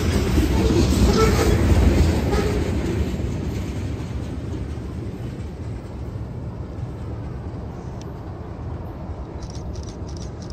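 Freight train of tank cars rolling past, its wheels rumbling and knocking on the rails. The sound is loudest for the first few seconds, then fades steadily as the end of the train moves away.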